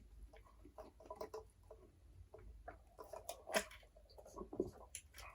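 Close-miked chewing and wet mouth sounds of a person eating burgers and fries: a run of soft, irregular smacks and clicks, the loudest a little past halfway.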